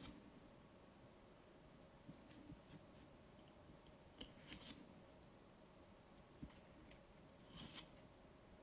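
Pages of a small, thick paperback photobook being turned by hand, giving faint paper rustles and soft page flicks every second or two against near silence.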